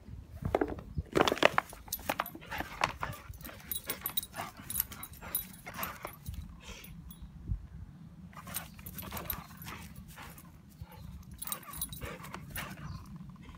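Rottweiler–Staffordshire bull terrier cross puppy chewing and shaking a plastic drinks bottle: the plastic crackles and crunches in irregular bursts, along with the puppy's own short noises.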